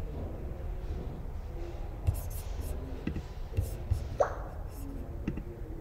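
Scattered, irregular clicks and taps of a computer keyboard and mouse, over a steady low hum.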